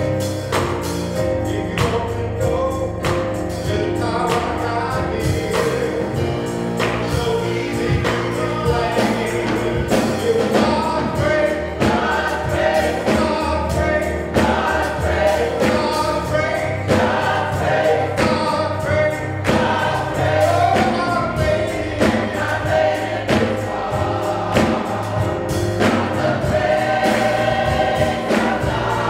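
Church choir singing a gospel song over a steady beat with low instrumental backing, with hand clapping near the end.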